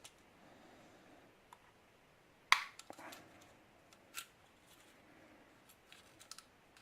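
A few sharp clicks and knocks of small tools and a plastic case being handled as a new shim is taken out, the loudest about two and a half seconds in, with lighter ticks after it.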